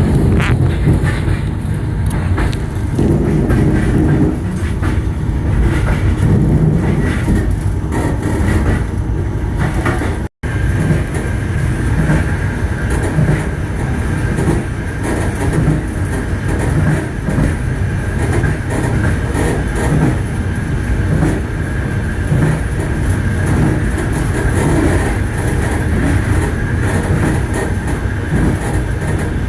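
Passenger train's wheels clattering over the rails, with the steady rumble of the carriage in motion. The sound cuts out for an instant about ten seconds in.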